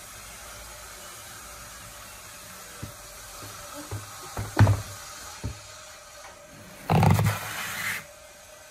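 Old chipboard speaker cabinets handled on a wooden workbench, over a steady hiss: several knocks with one sharp thump about halfway through, then a heavier knock and rub lasting about a second as a cabinet is set down on the bench.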